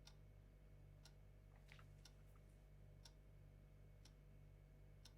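Faint ticking of a clock, about one tick a second, over a low steady room hum.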